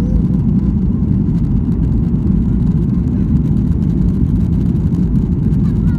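Steady low rumble inside the cabin of a Boeing 737-800 with its engines running, even in level and with no sudden changes.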